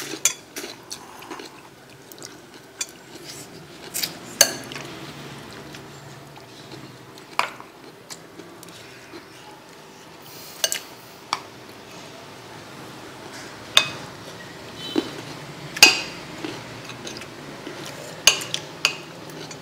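A spoon clinking and knocking against ceramic soup bowls, in scattered sharp clinks every second or two over a low steady background.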